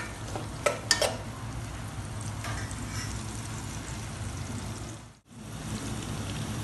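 Sliced onions and green chillies frying in oil in an aluminium pot, with a steady sizzle. A few sharp knocks of the stirring spoon against the pot come in the first second, and the sound cuts out for an instant about five seconds in.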